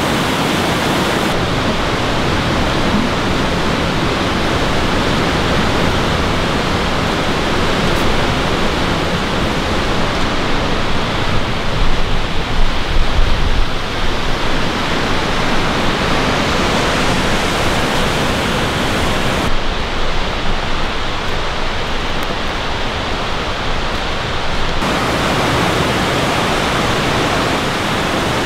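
Whitewater rapids of the Cheakamus River rushing over rocks, a steady loud roar of water. A few louder low bumps on the microphone come about halfway through.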